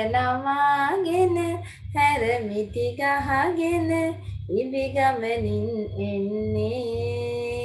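A high voice singing a slow song in phrases of long held notes, the last note held for about three seconds, over a low steady hum.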